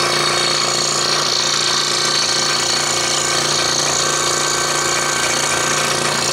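Scroll saw running steadily, its blade stroking rapidly up and down as it cuts through a thin wooden jigsaw puzzle.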